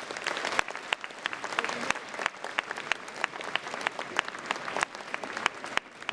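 Audience applauding. Thick clapping in the first couple of seconds thins to scattered, distinct claps.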